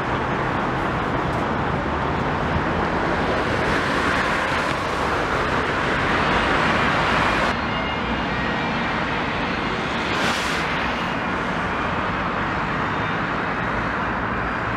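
Steady city road traffic noise from cars driving past on a wide boulevard. A louder stretch ends abruptly about seven and a half seconds in, and a short hiss comes around ten seconds.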